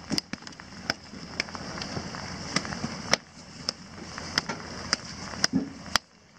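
Steady rain hiss with irregular sharp taps of raindrops striking close to the microphone, one or two a second. It cuts off about six seconds in.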